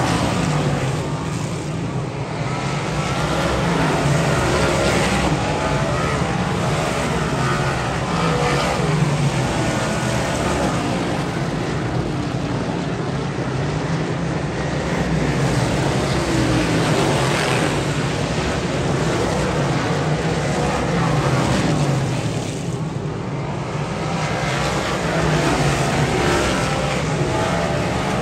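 Dirt modified race cars' V8 engines running on the track. The noise swells and fades every few seconds as cars go by, with a brief lull near the end.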